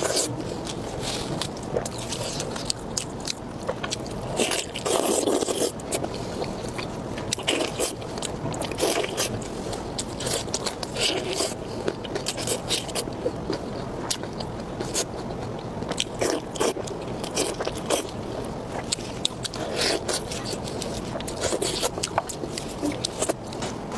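Close-miked mukbang eating sounds: a person biting and chewing food, with wet clicks and scrapes of food and utensils throughout.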